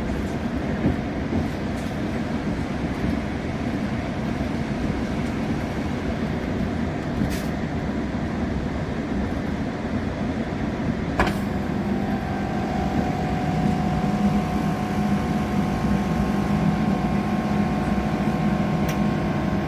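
Passenger train running, heard from inside the carriage: a steady rumble from the wheels and track. A sharp click comes about eleven seconds in, after which a steady hum with several tones sets in and grows a little louder.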